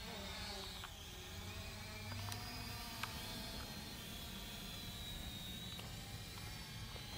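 Small quadcopter drone's motors and propellers whining, heard close from the drone itself, the pitch shifting slowly up and down as the throttle changes.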